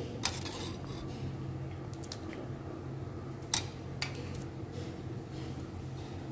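Steel ladle clinking against a stainless steel can of payasam: one clink near the start, then two more half a second apart past the middle, over a steady low hum.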